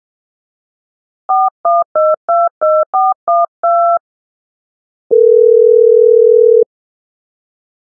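Telephone touch-tone dialing: eight quick two-tone keypad beeps. After a short pause comes one long steady ringing tone as the call goes through.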